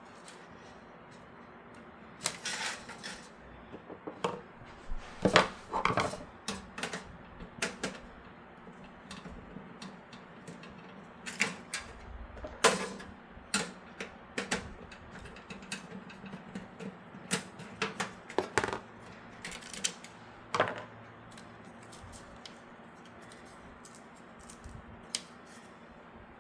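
Irregular sharp clicks, taps and knocks of hard plastic and metal computer-case parts being handled and fitted during a graphics-card riser cable install, in clusters with short pauses and only a few faint clicks near the end.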